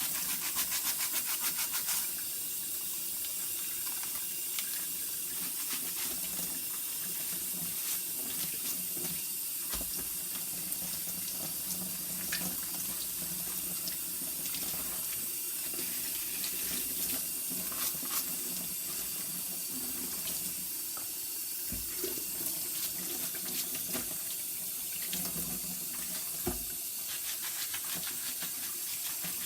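Kitchen tap running steadily into a sink as dirty cabbage is rinsed, with a few light knocks.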